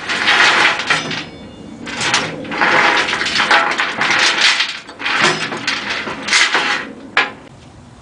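Steel lifting chain being handled, clanking and rattling in several loud bursts with brief metallic ringing, ending on a single sharp clank.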